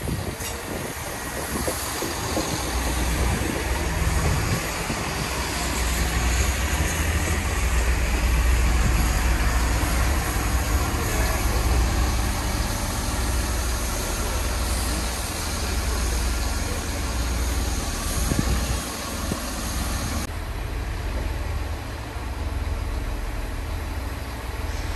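GWR diesel multiple units in the station: a Class 166 pulling away while a Class 150 Sprinter runs in and comes to a stand. A steady low diesel engine rumble carries through, and the higher running noise falls away suddenly about twenty seconds in.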